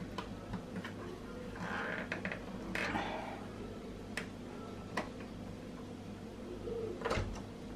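Plastic lid of a Compact Cook Elite multicooker being handled and lifted off its steel bowl: a couple of short rustles, then a few faint separate clicks.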